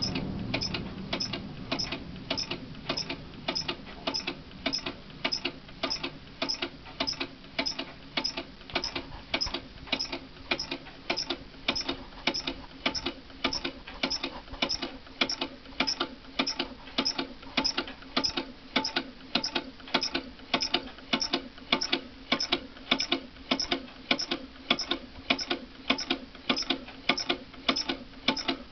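Small lamina flow hot-air engine running on a candle flame, its moving parts giving an even mechanical click about twice a second.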